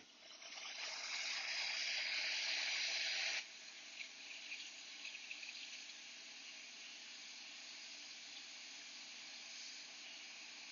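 Hot air rework station blowing a steady hiss of air at low heat onto a logic-board chip to melt its solder and lift it off. The hiss builds over the first two seconds, drops suddenly to a quieter level a little after three seconds in, and a few faint ticks follow.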